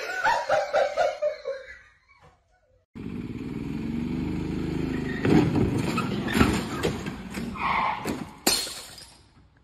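A short burst of a person's voice, then a golf cart running along pavement, a steady motor sound with several sharp knocks, the loudest near the end.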